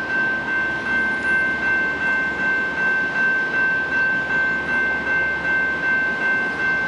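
A bell ringing in rapid, even strokes at one steady pitch, over the low rumble of an approaching diesel freight train.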